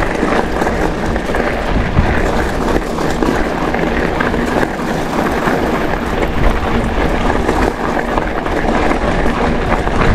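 Mountain bike tyres rolling over loose crushed-stone gravel: a steady, dense crunching and rattling with many small knocks, and wind rushing over the microphone.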